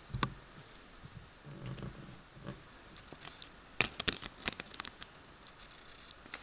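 Red sticker being peeled off a small paper sticker sheet, with the paper crinkling in the hands. A sharp click comes at the start, and a cluster of sharp crackles follows about four seconds in.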